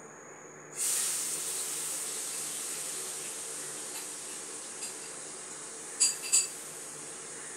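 A steady high hiss starts suddenly about a second in and carries on, easing slightly. Two sharp clicks close together near the end are the loudest sounds.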